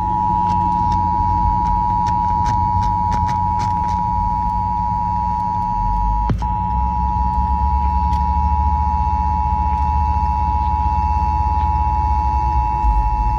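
Emergency Alert System attention signal: the two-tone alarm, 853 Hz and 960 Hz sounded together, held steady with a brief break about six seconds in, heralding an Amber Alert. A low hum runs underneath.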